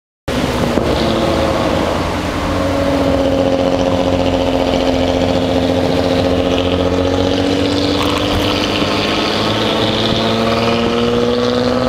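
Engine of a 2005 Nissan Altima SE-R, a 3.5-litre VQ V6, heard from inside the cabin, running steadily while driving. It cuts in suddenly at the start, dips slightly in pitch about two seconds in, and rises gently near the end.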